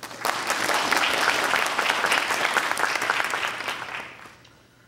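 Audience applauding after a speaker's self-introduction. It starts at once, holds steady for about three seconds, then dies away.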